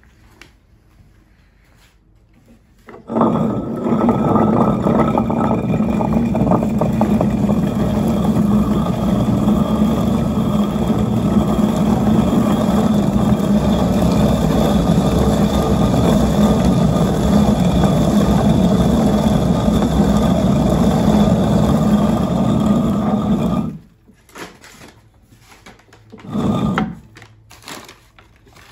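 Stone rotary hand quern (Roman-type hand mill) grinding grain: the hand-turned upper stone grates on the lower stone in a steady rumble that starts about three seconds in and stops a few seconds before the end, followed by one short further burst of grinding.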